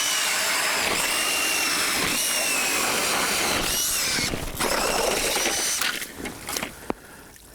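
Cordless drill driving an ice auger, boring through the ice with a steady whine that stops about six seconds in, followed by a few light knocks.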